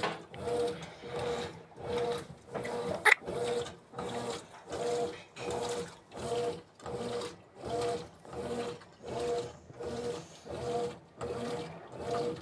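Brastemp BWK17 top-load washing machine agitating in its stain-removal cycle: the motor hums as it swings the wash back and forth through the water, about one and a half strokes a second, with one sharp click about three seconds in.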